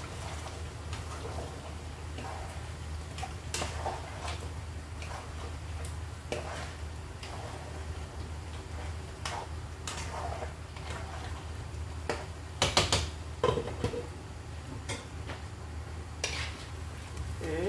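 A utensil clicking and scraping against a frying pan while rengginang fry in oil, with a few louder clatters about two-thirds through, over a steady low hum.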